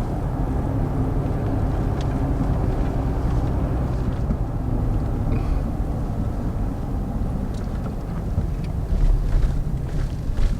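Vehicle driving: a steady low engine and road rumble, with a few light knocks and a louder rough stretch near the end.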